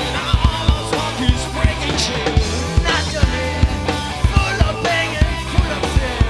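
Rock band playing a song live, with a drum kit keeping a steady beat under bass and other instruments.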